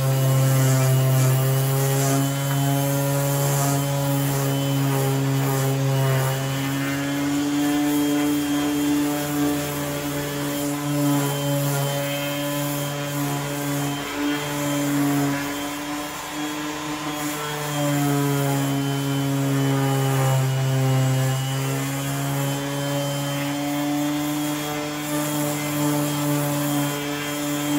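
Corded electric orbital sander running against a plastic car headlight lens, sanding off its hazy yellowed surface. A steady motor hum with rubbing grit noise, its pitch sagging briefly a few times, most around the middle.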